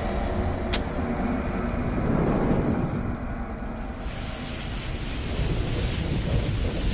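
Sound effects for an animated bomb-and-fuse logo intro: a steady deep rumble with a sharp click under a second in. About four seconds in, a hiss of burning fuse and flame joins it.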